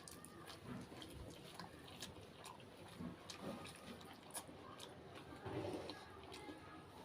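Faint chewing and mouth sounds of someone eating samosas, with many small wet clicks and smacks, a little louder about five and a half seconds in.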